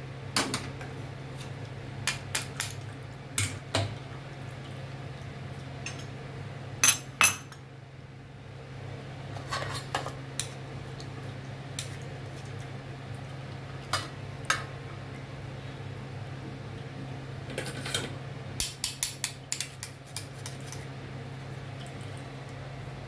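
Metal utensils clinking and scraping against a pot and bowl as strained soup is transferred into a serving bowl. The clinks are irregular, with the two loudest about seven seconds in and a quick run of them near the end. A steady low hum runs underneath.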